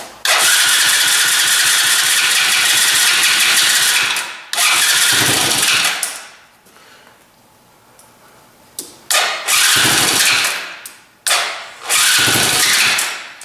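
Electric starter cranking the 100cc Chinese quad ATV's single-cylinder engine with the choke on, in four bursts, the first about four seconds long. Each burst dies away within about a second and the engine does not settle into a steady idle.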